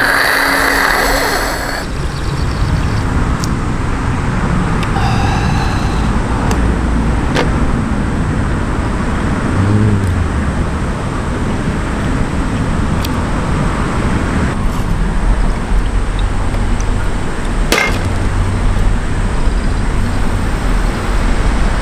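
Steady road traffic noise with a low rumble. In the first two seconds a man gives a loud, harsh breath out after a shot of liquor, and a few small clicks are scattered through.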